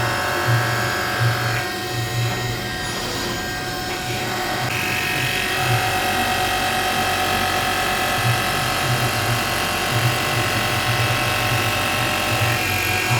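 Three-axis CNC machining center milling steel: a steady whine from the spindle and cutter, with the tone shifting a few times and a low hum that comes and goes.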